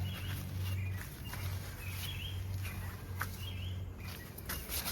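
A bird calling outdoors, a short chirp repeated every second or so, over a steady low background hum, with rustling near the end.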